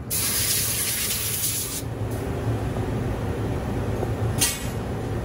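Air-driven hiss of an electrostatic powder-coating spray gun: one burst of nearly two seconds, then a short puff near the end, over a steady low hum.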